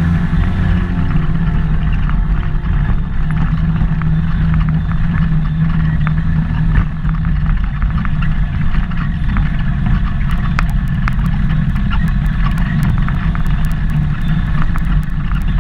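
ATV engine running steadily under way along a dirt trail, with tyre and trail rumble. From about ten seconds in, a quick scatter of light clicks and ticks.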